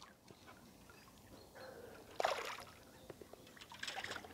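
Faint splashing and sloshing of water: one short splash about two seconds in and a few smaller ones near the end.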